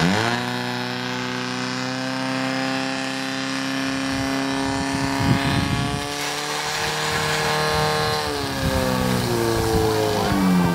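Firesport pump's engine revving: it climbs sharply at once, holds at high revs for about eight seconds, then drops back and revs up and down in short steps near the end.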